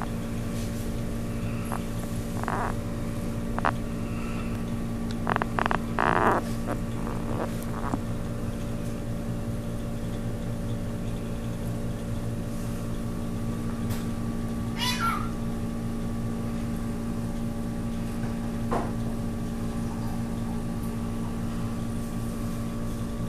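Steady hum of reef aquarium pumps and equipment, with a few short animal calls over it. The loudest calls come about five to six seconds in, and a quick high cry rises and falls about fifteen seconds in.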